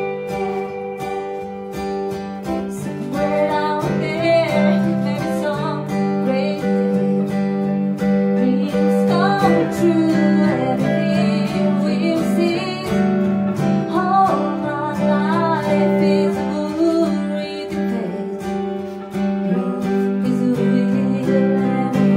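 Live acoustic-guitar song: a steel-string acoustic guitar strummed together with a clean electric guitar, and a woman's singing voice that comes in about three seconds in, pausing briefly near the end.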